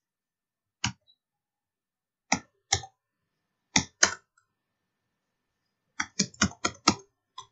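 Keystrokes on a computer keyboard: a few separate key presses, then a quick run of about six near the end.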